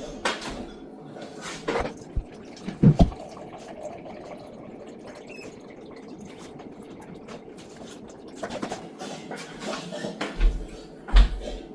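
Tap water running steadily into a measuring cup for about five seconds, with a few knocks of the cup and kitchen items before and after.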